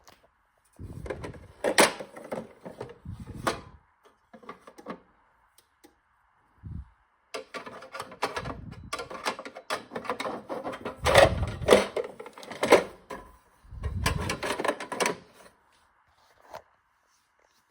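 Irregular clatter and knocking of hard objects being handled and set down. It comes in several bursts with short quiet gaps between them.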